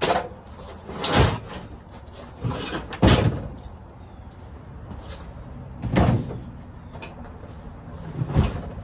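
A series of heavy thumps and clunks, about seven spread through, as a lawn mower and snowblower are pushed and shifted by hand, knocking against each other and the shed.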